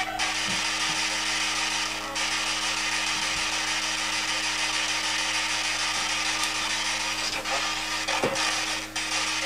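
P-SB7 spirit box radio sweeping through stations, giving a steady hiss of radio static, with a steady low hum underneath.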